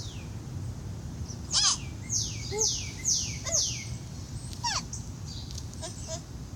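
A bird calling: a run of four quick calls about half a second apart, each sliding sharply down in pitch, with a few short harsher calls before and after, over a low steady hum.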